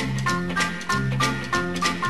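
Upbeat instrumental dance-band music with a steady beat, a stepping bass line and percussion.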